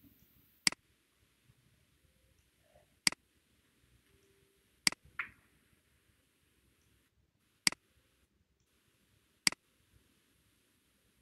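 Computer mouse button clicking five times, a few seconds apart, each a sharp click with a quieter second click close behind, as the press and release.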